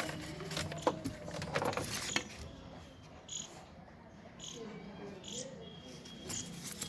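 Clicks and rustles of packaging and accessories being handled, busiest in the first couple of seconds and quieter after.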